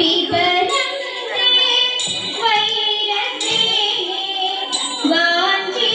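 Female voices singing a Thiruvathirakali song, with evenly spaced hand claps a little over a second apart from the dancers circling the lamp.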